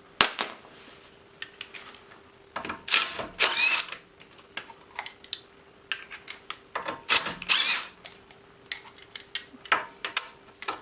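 Impact wrench running in several short bursts, mostly in pairs, spinning off the Tesla Model Y's already-loosened 21 mm wheel nuts. Small metallic clinks of nuts and socket come between the bursts.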